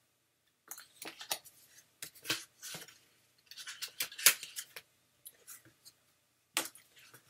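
Stiff picture flashcards and word strips being handled and shuffled: a run of short scrapes and taps, the loudest about four seconds in, with a brief pause before one more near the end.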